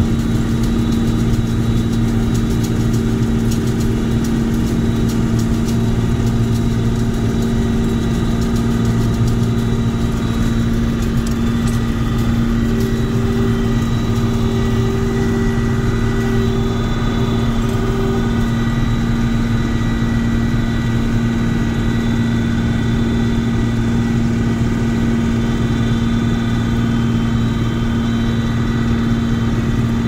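Combine harvester running while harvesting: a steady engine and machinery drone with a constant low hum. A slightly higher tone comes and goes about halfway through.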